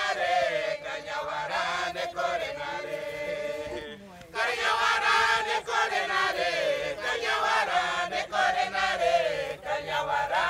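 A group of voices chanting a traditional song together, with a short break about four seconds in.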